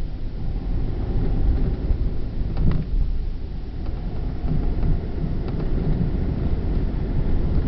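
Road and engine noise heard inside a car's cabin while driving slowly over a wet, uneven road surface: a steady low rumble, with a short knock about two and a half seconds in.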